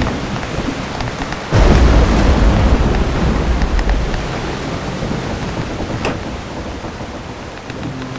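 Thunderstorm: steady rain with a sudden loud clap of thunder about a second and a half in, its rumble slowly dying away over the following seconds.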